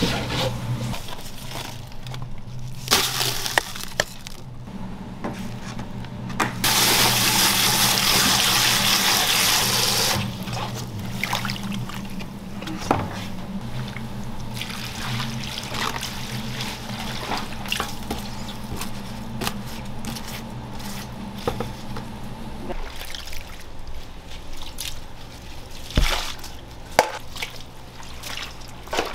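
Water running hard for about three and a half seconds in a restaurant kitchen, with scattered clinks and knocks and a steady low hum that stops near the end.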